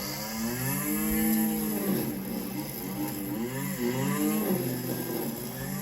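A man's voice humming or droning to himself in long, slowly rising and falling notes.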